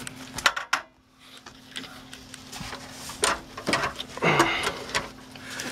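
Handling noise: scattered knocks, taps and rubs, the loudest cluster about four seconds in, over a steady low hum.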